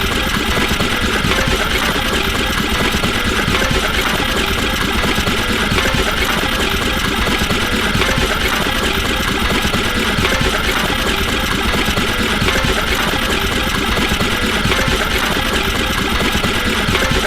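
A machine running steadily at an even level, with no starts, stops or changes.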